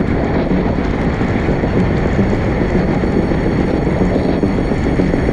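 Steady rush of wind and tyre noise from a road bicycle ridden at race speed in a criterium.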